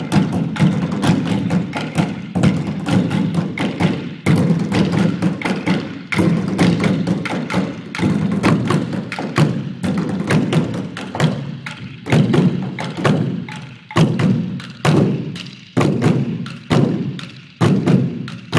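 Percussion ensemble drumming with sticks on black plastic bins: a dense run of fast strikes with a hollow low body tone. In the last several seconds, loud accented hits come a little more than once a second.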